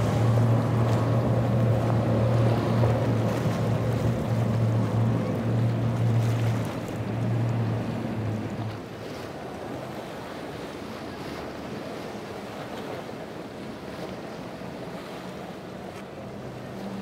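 Quad Yamaha 425 V8 outboard motors on a center-console boat running at speed, a steady low drone with water rushing along the hull. The engine sound fades out about eight to nine seconds in, leaving wind on the microphone and surf.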